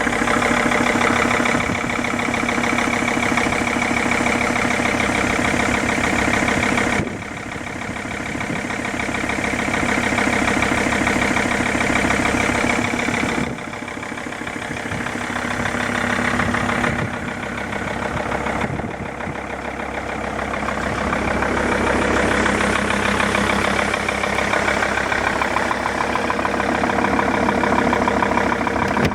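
Mercedes-Benz W211 E-Class engine running at idle with a rapid regular knock, the knock the owner is recording. The loudness drops and comes back a few times.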